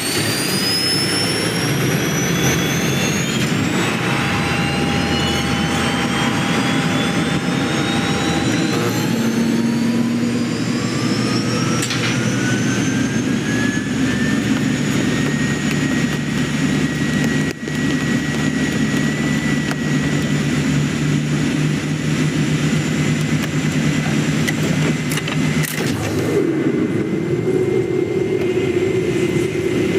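Jet airliner's turbine engines spooling up for takeoff: several whines that climb in pitch over about the first fifteen seconds, then hold steady over a heavy rumble.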